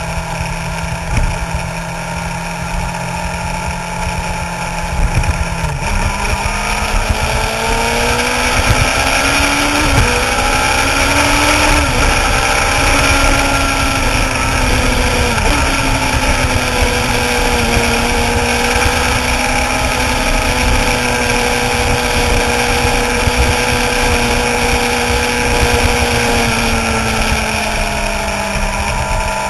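Suzuki GSX-R sportbike's inline-four engine heard at road speed from an onboard mount, with wind noise over the microphone. Its pitch is steady at first, rises about six seconds in with a couple of dips and climbs, then holds an even cruise and eases off slightly near the end.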